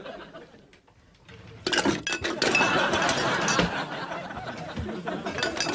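Glass bottles clinking and rattling against one another as someone rummages among them, a dense run of clinks that starts about a second and a half in after a near-quiet moment.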